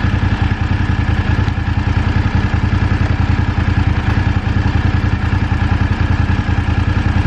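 BMW F850 GS parallel-twin engine running steadily at low revs as the motorcycle rolls slowly along.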